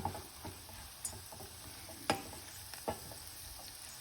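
Cashew nuts, curry leaves and spices frying in ghee in a pan, a steady sizzle, with a spoon stirring and clicking against the pan several times.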